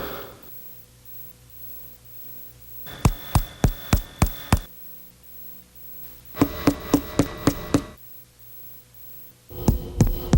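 Chest percussion, a finger tapping on a finger laid against the chest wall, in three runs of about seven quick taps each, roughly two seconds apart. Each run rings at a different pitch, as the different percussion notes of the thorax.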